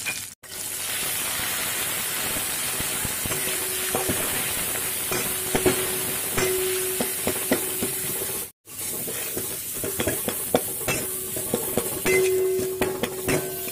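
Ghatkol leaf paste frying in mustard oil in a metal karai, sizzling steadily, while a spatula scrapes and knocks against the pan as the paste is stirred. The sound cuts out briefly twice, about half a second and eight and a half seconds in.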